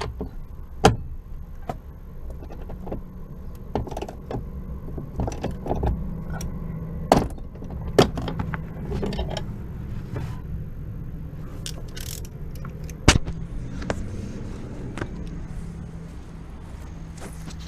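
Scattered metallic clinks and knocks of hand tools and the clutch pedal assembly being worked on under the dashboard, over a steady low hum. The sharpest knocks come about 7, 8 and 13 seconds in.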